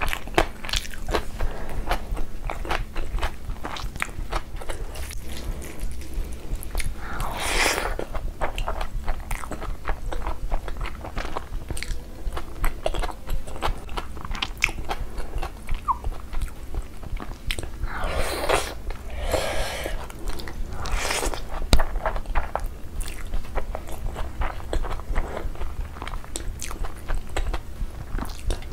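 Close-miked eating: wet chewing, lip smacks and crunching bites of biryani rice and meat curry eaten by hand, many sharp mouth clicks in quick succession, with a few longer hissing bursts.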